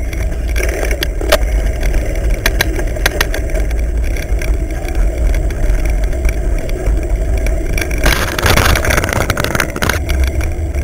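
Wind buffeting the mountain bike's camera microphone as a low rumble, with the bike rattling over a rough dirt singletrack in scattered clicks and knocks. A louder rush of noise comes about eight seconds in.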